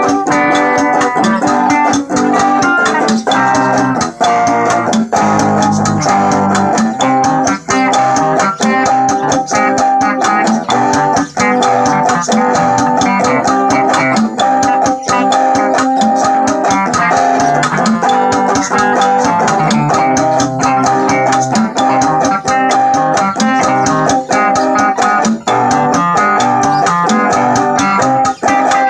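Stratocaster-style electric guitar playing a cha-cha melody in quick single-note lines over a steady bass and beat accompaniment.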